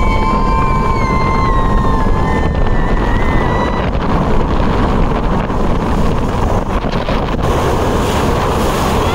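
Motorboat running fast across open water: engine and rushing water under heavy wind buffeting the microphone. A long high-pitched sound lasts about four seconds near the start, falling slightly in pitch.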